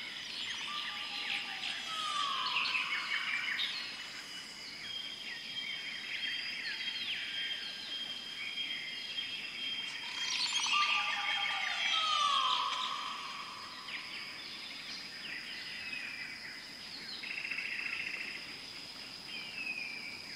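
Many birds chirping and whistling over a steady high tone. A loud whistled call slides down in pitch about two seconds in and again about halfway through.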